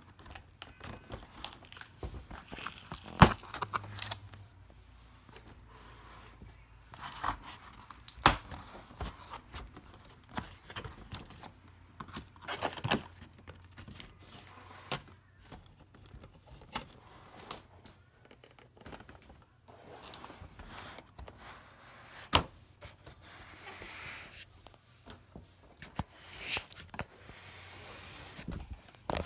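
Tearing and crinkling of packaging being handled, broken by scattered sharp knocks, the loudest a little after 3 seconds in.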